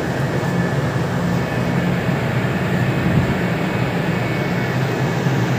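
Steady low drone of a ship's machinery heard on deck, an even hum with no change.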